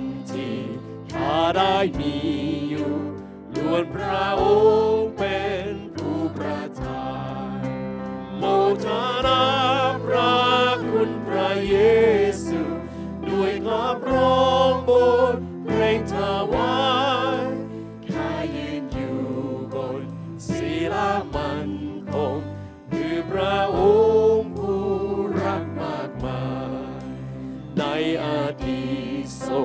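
A man singing a Thai Christian worship song into a microphone, over band accompaniment with a bass line and a steady beat.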